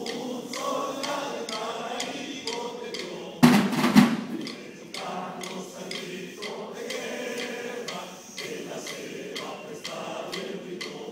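Snare drums of a school drum corps beating a steady march rhythm, about two strokes a second, with many voices singing over them. A loud, brief knocking burst comes about three and a half seconds in.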